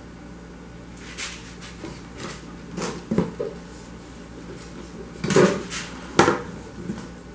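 Hard containers and objects being picked up, moved and set down on a granite countertop: a scattered series of clinks and knocks starting about a second in, loudest twice, a little after five seconds and about six seconds in.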